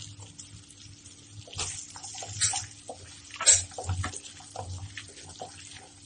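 Wooden spatula stirring onions, cashews and whole spices frying in butter in a non-stick pan: irregular scrapes and scuffs over a light sizzle, the loudest scrape about three and a half seconds in.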